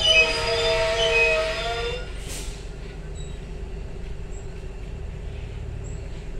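Passenger train's wheels squealing in several wavering high tones as the train moves slowly along the platform, dying away after about two seconds. A brief hiss follows, over the train's steady low rumble.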